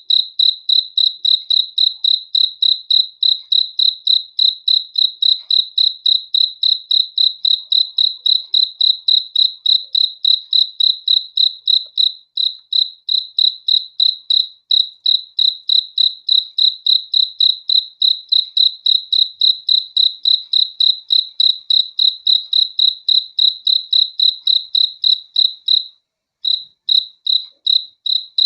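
A cricket chirping on one high pitch in a steady, even rhythm of about three to four chirps a second. There is a brief pause near the end before it starts again.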